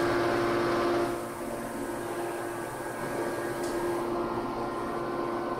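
Steady hum of a 3150-ton hydraulic forging press and its forging manipulator at work, with one strong fixed tone and several fainter higher ones. The hum is a little louder for the first second, then settles.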